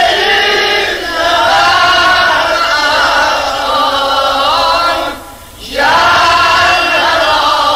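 A mourning lament for Imam Hussein, chanted in long, wavering sung lines. It breaks off briefly for a breath a little after five seconds in, then resumes.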